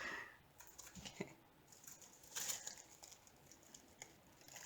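Faint rustling of a small plastic bag being handled, with a few light clicks.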